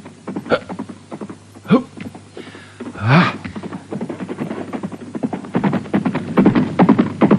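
Galloping horse's hoofbeats, a fast even patter that grows louder through the second half. Before it come a few scattered knocks and a short rising call about three seconds in.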